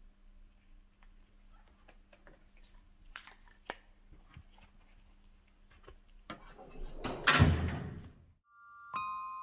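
A few light clicks of brushes being set down in a metal drawer, then a steel tool-cabinet drawer rolling shut on its runners. The slide swells to its loudest about seven and a half seconds in and ends about a second later. Near the end a few steady electronic music tones begin.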